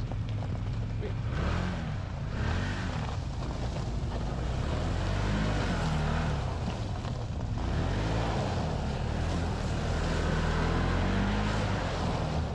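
Side-by-side UTV engine running hard, its revs rising and falling again and again.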